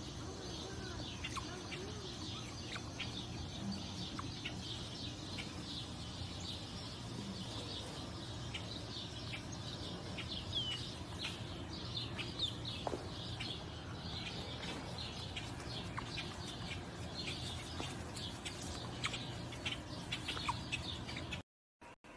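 Many quick, high-pitched animal chirps, coming thick and fast over a faint steady low hum.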